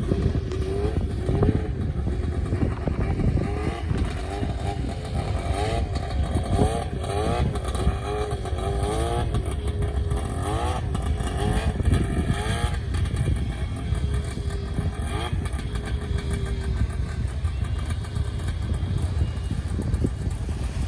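Vintage Arctic Cat ice-racer snowmobile's two-stroke engine running, its revs rising and falling repeatedly for the first dozen seconds or so, then running more evenly.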